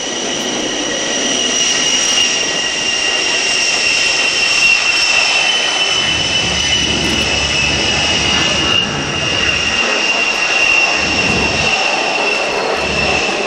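S-3B Viking's twin TF34 turbofan engines at takeoff power during the takeoff roll and lift-off. A loud, steady jet whine whose two high tones slowly fall in pitch over a roar, with a deeper rumble through the middle.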